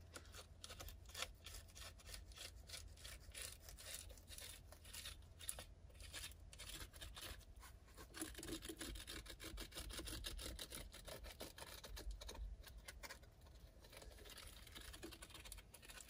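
Sharpie marker drawn along the edge of Reflectix bubble-foil insulation: a run of quick, faint scratching and rubbing strokes, with the foil rustling now and then.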